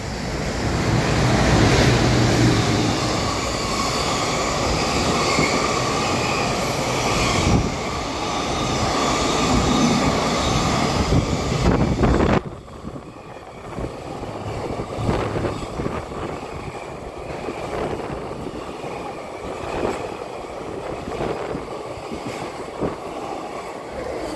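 JR Freight EF210 electric locomotive hauling a long train of Koki container flatcars passing through at speed, a loud rush of motors, wheels and rails. About halfway through the sound drops abruptly to a lighter rumble as the container wagons roll past, their wheels clacking over the rail joints.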